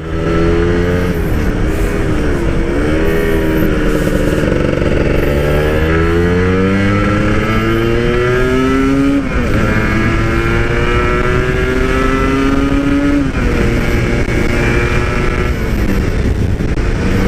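Yamaha RX-King two-stroke single-cylinder motorcycle, on its stock exhaust, accelerating hard through the gears: the engine note climbs in pitch and drops back sharply at each upshift, about three times.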